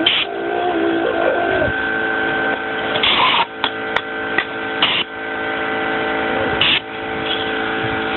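Short hissing blasts of compressed air from a handheld air blow gun on an air hose, several in all, the longest about three seconds in. Under them runs a steady machine hum.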